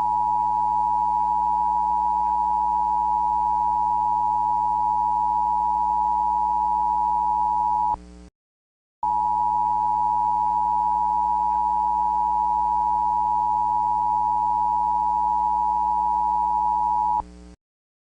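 Emergency alert attention tone: a steady, loud electronic tone sounding for about eight seconds, breaking off for a moment, then sounding again for about eight seconds.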